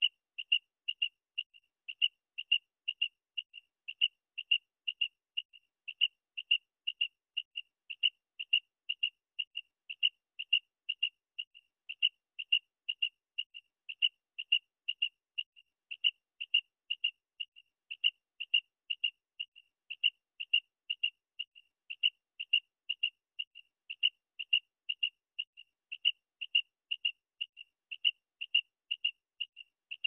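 Common quail calling: short, high, sharp notes repeated in quick groups, on and on without a break, as in the male's three-note song.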